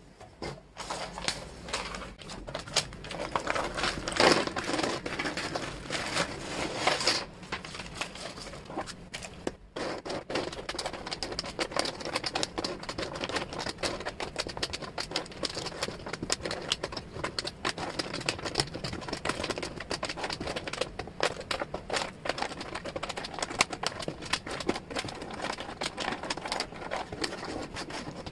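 Small laser-cut wooden jigsaw pieces clicking and clattering against each other and the table as they are spread out and sorted by hand: a rapid, dense stream of light clicks, louder and busier during the first several seconds.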